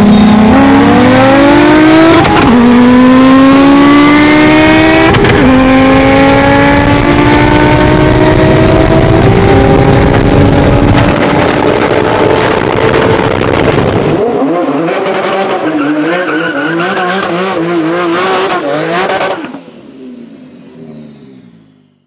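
A car engine at full throttle, heard from inside a car, pulling hard through the gears. Its pitch climbs with shifts about two and five seconds in, then rises slowly through a long pull. About fourteen seconds in it drops abruptly to a lower, wavering sound, and it fades out near the end.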